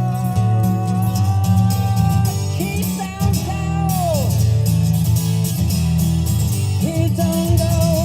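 Guitar rock song with drums and strong bass playing over a car's aftermarket three-way audio system (Alpine head unit, Audison processor and amplifier, JBL front speakers, Brax subwoofer). Held guitar notes ring out above the beat, one bending down in pitch about four seconds in and another starting near the end.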